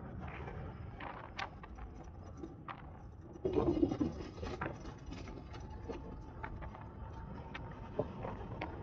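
Low rumble of wind and tyre noise from a bicycle rolling along a paved path, with scattered clicks and rattles from the bike. A short, louder bump comes about three and a half seconds in.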